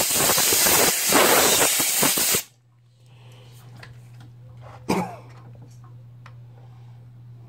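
Pressurized spray hissing loudly into the chainsaw's housing, cutting off sharply about two and a half seconds in. A short knock follows about five seconds in.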